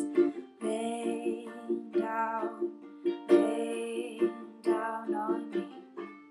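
A voice singing long, held phrases over a steadily strummed acoustic string instrument, in a small, dry room.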